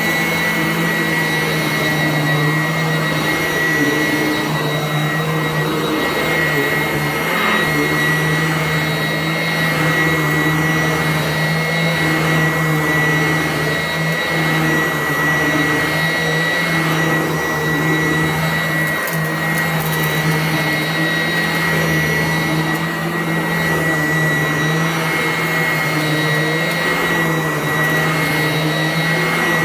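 Sanitaire vacuum cleaner running continuously, a steady motor whine with a constant high tone that wavers slightly as it is pushed about.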